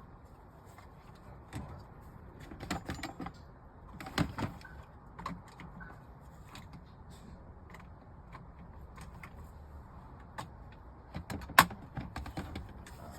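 Scattered clicks, taps and knocks of plastic dashboard parts and vents being handled and fitted into a car's dash, with a few quick clusters of clicks and one sharper knock near the end.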